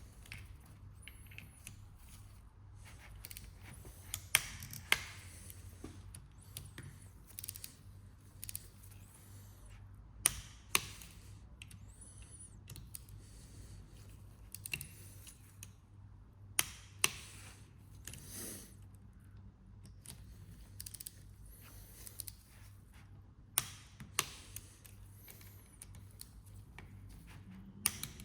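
Sharp, irregular clicks and taps of small metal parts and hand tools being handled during an oil pump rebuild, about a dozen over the stretch, with a low steady hum underneath.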